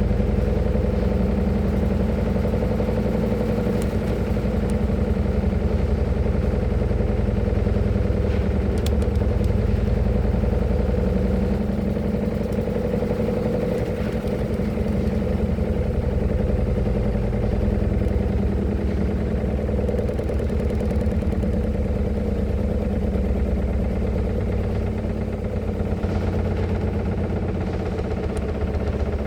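Washing machine on its spin cycle, the drum spinning at high speed with a loud, steady mechanical hum.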